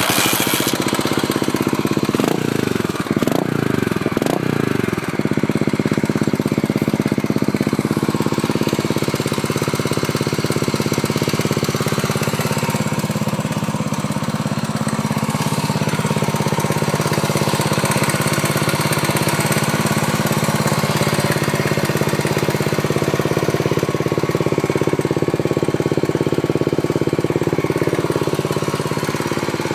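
Honda GB400TT's air-cooled 399 cc single-cylinder four-stroke engine catching right at the start and being blipped a few times in the first five seconds, rising and falling in pitch, then settling into a steady idle.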